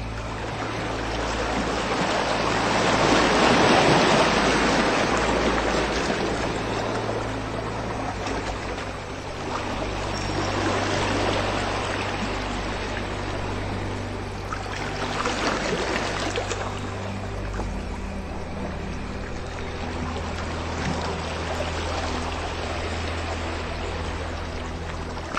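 Ambient music of slow, held low drones, the bass notes shifting twice, layered with the sound of running water that swells and eases.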